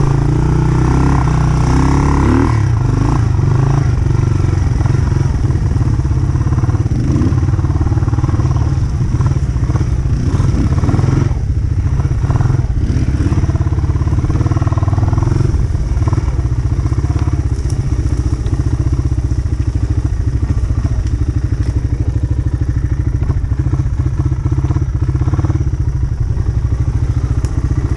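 A loud engine running steadily at a constant speed, a dense low rumble with a rush of noise over it.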